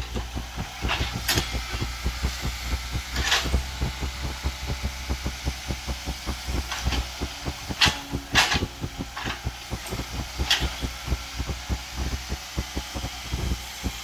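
CAT crawler excavator's diesel engine running steadily with a fast low throb, while the bucket works in soil and debris. Sharp knocks and clanks cut through several times, the loudest a pair a little past the middle.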